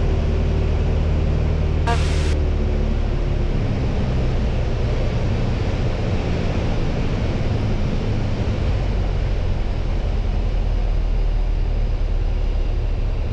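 Piper PA-28's piston engine and propeller drone heard from inside the cockpit. About three seconds in the engine note drops as power is pulled back to begin a clean stall entry. A short sharp noise comes about two seconds in.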